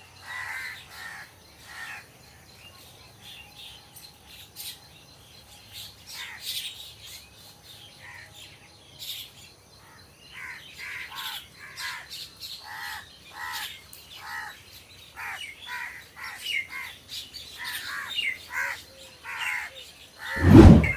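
Crows cawing: many short calls, a few at first and coming thick and fast from about halfway through. A loud thump near the end.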